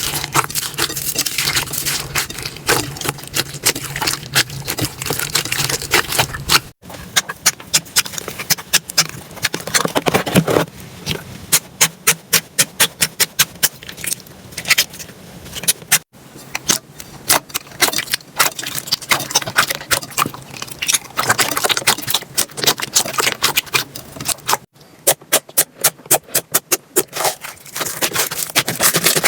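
Slime being squeezed, stretched and poked by hands, making rapid sharp clicks, crackles and squelchy pops. The sound changes abruptly three times, at about 7, 16 and 25 seconds in, as one slime gives way to another.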